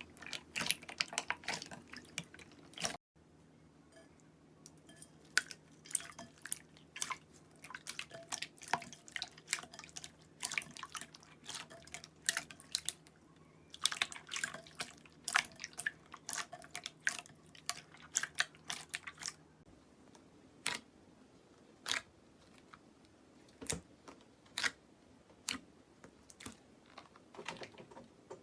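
Slime being handled, giving irregular clicks and pops that come singly and in quick dense clusters.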